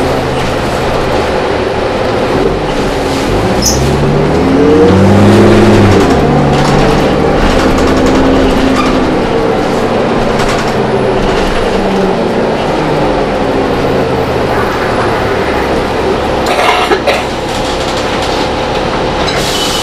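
Cabin sound of a 2005 New Flyer D40LF city bus with a Cummins ISL inline-six diesel: the engine rises in pitch as the bus accelerates, is loudest about five or six seconds in, then settles to a steady run. A brief cluster of rattles or knocks comes near the end.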